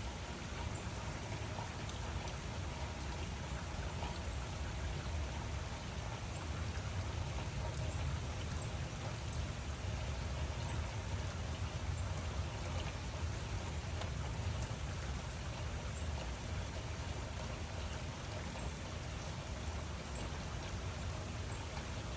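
Steady rain falling: an even wash of rain noise with a constant low rumble beneath and scattered faint drop ticks, with no distinct thunderclap.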